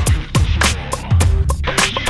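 Dance music with a heavy kick-drum beat and sharp percussion hits.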